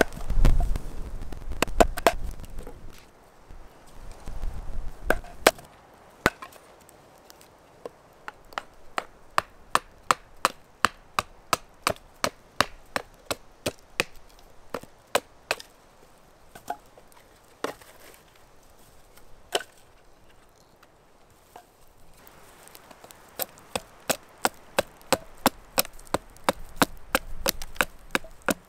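Wood being chopped by hand, a run of sharp strikes about two a second, with a short lull before a second run near the end.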